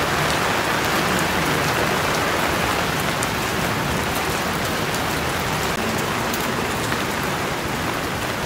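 Rain falling steadily on a wet paved street: an even hiss with many small drop ticks.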